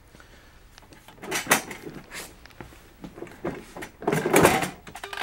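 Handling noise of an ARRI open-face light being lifted out of a foam-lined aluminium equipment case: a string of sharp clicks and knocks of metal fittings and cables, with a louder, longer rattle about four seconds in.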